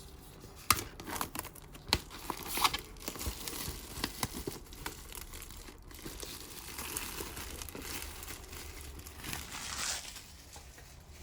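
Plastic wrapping being torn and crumpled off a model kit box: irregular crinkling and tearing with scattered sharp clicks and crackles.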